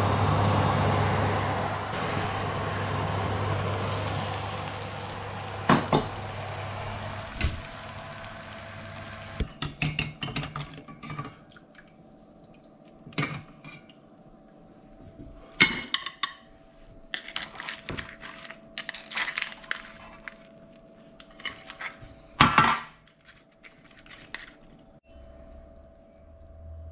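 A steady hum from the fan oven that fades over the first several seconds. Then metal kitchen tongs clink and scrape against a stainless saucepan and a plate in clusters of short, sharp clinks as the boiled crab is lifted out and plated.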